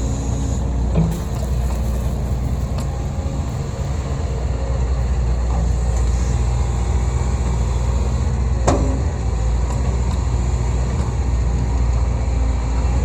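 Excavator diesel engine running steadily while working, with a sharp clank near nine seconds in and a smaller knock about a second in.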